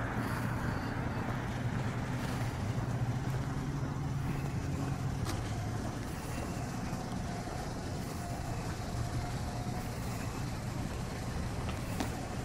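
Road traffic: a passing motor vehicle's low engine hum that fades out about five seconds in, over a steady low rumble.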